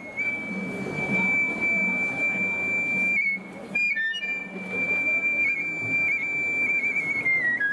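Shinobue (Japanese bamboo transverse flute) holding a long high note, breaking off briefly about three seconds in, then held again and stepping down in pitch near the end, over taiko drums.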